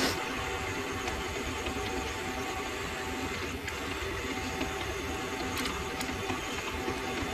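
Mini lathe running steadily at speed while a twist drill in the tailstock chuck bores into the spinning workpiece, with a few faint clicks near the end.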